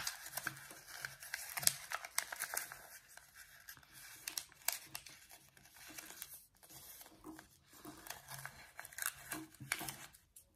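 Folded origami paper being opened up, flattened and creased by hand: irregular crinkling and rustling of the paper.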